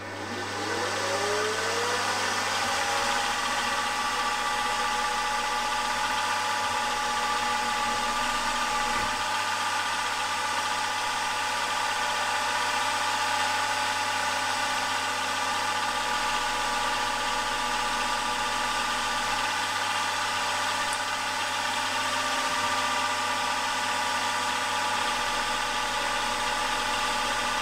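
Milling machine spindle motor spinning up with a rising whine over the first two seconds, then running steadily at speed while a centre drill spots holes in conrod blanks.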